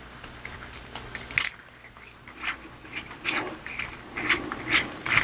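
ThruNite Mini Bolt Action aluminium pen being reassembled by hand, with the refill, spring and end cap going back in: a run of light clicks and small scrapes that come more often in the second half.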